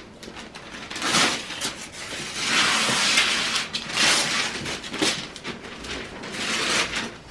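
Gift wrapping paper being torn and crumpled by hand, in a run of rips and rustles.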